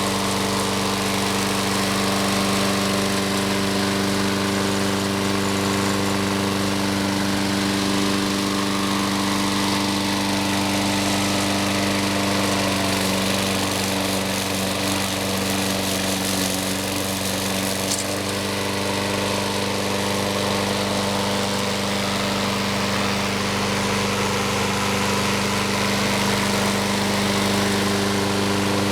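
Briggs & Stratton engine of a Troy-Bilt self-propelled walk-behind lawn mower running steadily at a constant speed after a fresh start, its clogged air filter now cleaned and its oil changed.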